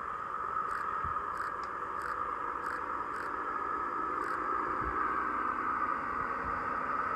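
NSW TrainLink XPT diesel power car and carriages passing: a steady high drone over a low rumble, with a few light clicks in the first half and a couple of dull thumps.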